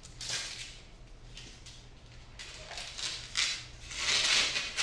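Rustling and scraping handling noises, a short one at the start and louder, longer ones near the end, over a steady low hum.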